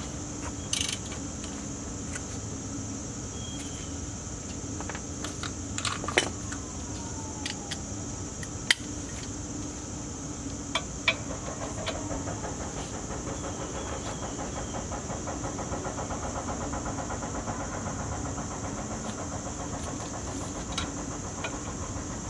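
Hand tools and loose parts being worked on a jacked-up Land Rover Discovery 2's rear axle during a wheel and suspension strip-down: scattered sharp metal clanks and knocks, the loudest two about 6 and 9 seconds in, over a steady hum. A faint, fast ticking runs for several seconds in the middle.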